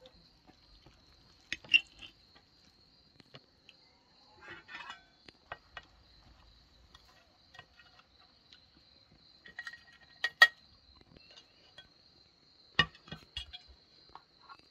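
Scattered sharp clinks and taps of cutlery against dishes, in a few small clusters, over a steady high trill of crickets.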